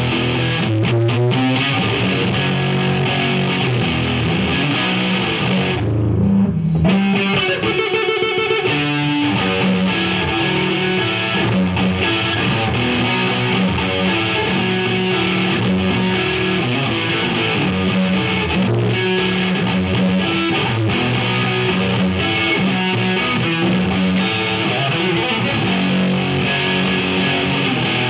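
Electric guitar played continuously through a Marshall JVM410 valve amplifier fitted with new valves. The high end drops out for about a second, six seconds in.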